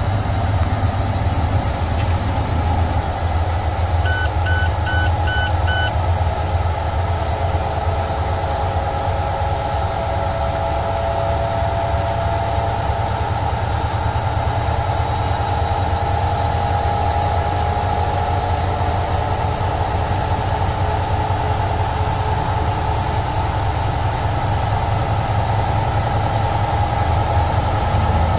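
MaxxForce 13 inline-six diesel in a 2013 International truck idling steadily, warmed up. About four seconds in come five short electronic beeps. Through the middle a faint whine slowly rises in pitch.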